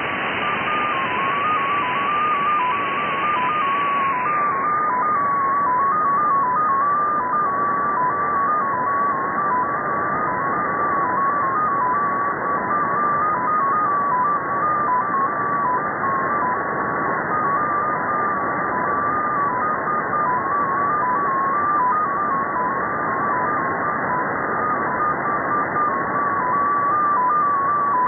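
Russian XPA2 shortwave data station received in upper sideband: a single tone near 1 kHz hopping quickly between a few close pitches over steady static hiss. About four seconds in, the hiss turns duller as its top end is cut.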